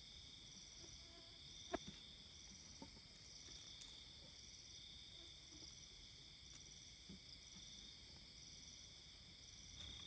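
A steady, faint chorus of night insects, crickets, with a shrill continuous trill and short chirps repeating about every second. A single small knock comes just under two seconds in.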